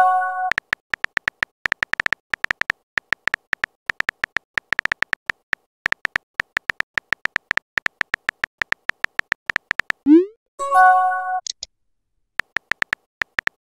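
Phone keyboard typing clicks, rapid and irregular, each a short beep-like tick. About ten seconds in, a rising swoosh and a short chime of several notes mark a message, and the typing clicks start again near the end.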